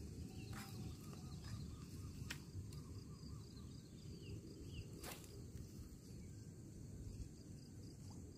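Quiet outdoor ambience: a low rumble under a steady, faint high insect drone, with a few small bird chirps and some light clicks.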